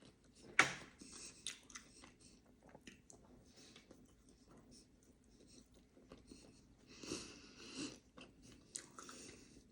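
A person chewing and biting into a soft donut, faint close-up mouth sounds with small wet clicks, and one sharper smack about half a second in.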